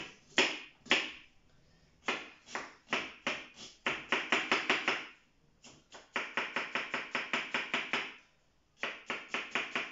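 Kitchen knife dicing an onion on a wooden cutting board: quick runs of chops, about six a second, broken by short pauses.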